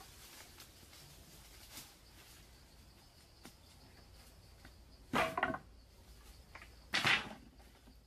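Two bundles of bamboo poles dropped onto bare earth, each landing with a short clatter, about two seconds apart, over steady insect chirping.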